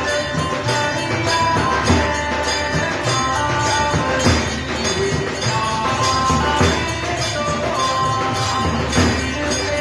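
Devotional aarti music: percussion keeps a steady beat under a melody of held notes.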